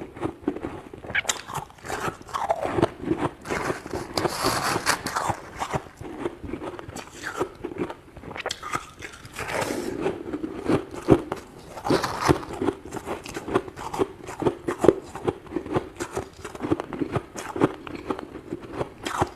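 Crunchy chunk of freezer frost being scraped: a dense run of sharp crunches and crackles.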